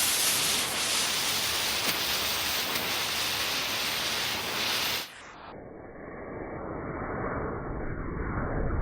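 A firework fuse ball burning with a steady hiss; about five seconds in the sound cuts off abruptly and gives way to a dull, muffled low rumble that grows louder, the burn played back slowed down for slow motion.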